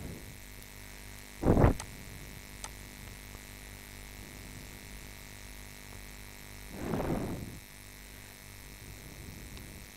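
Faint steady hum, broken by two short rushes of noise: a loud one about a second and a half in, and a softer, slightly longer one about seven seconds in.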